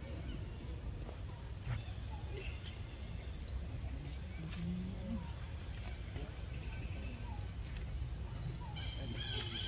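Forest ambience: a steady high-pitched insect drone over a low rumble, with a brief low sound about five seconds in and faint chirps near the end.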